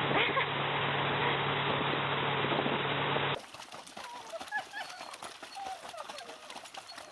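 A loud, steady noise with a low hum that cuts off abruptly a little over three seconds in, giving way to a run of short, high chirps like those of a small bird.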